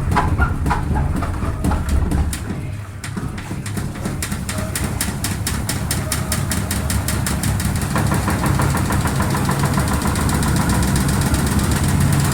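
Washing machine drum spinning up for the spin-dry, driven by its motor: rhythmic ticks quicken over a few seconds as the drum gathers speed, then settle into a steady fast spin with a motor hum.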